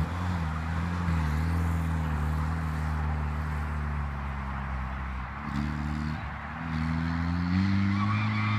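Renli RL1500 buggy's Chery 1.5-litre four-cylinder petrol engine running as the buggy drives away. Its pitch eases down at first, then rises in two steps in the second half as it picks up speed.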